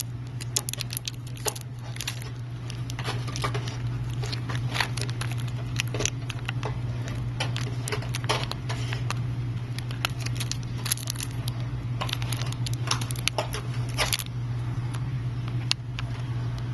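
Irregular small clicks and scratches of hand tools picking and scraping at a phone's glass while peeling and cleaning off excess cured UV glue, over a steady low hum.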